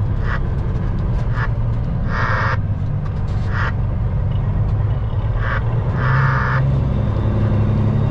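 Cab interior of a Peterbilt 379 semi truck, its CAT C15 diesel running steadily under the floor, the pitch rising a little about six seconds in. Several short bursts of hissing static from the CB radio speaker come at irregular moments.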